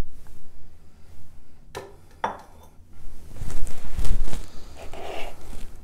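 Plastic kitchen bowls knocking and clattering as they are handled: two sharp knocks about two seconds in, then a louder run of bumps and thuds.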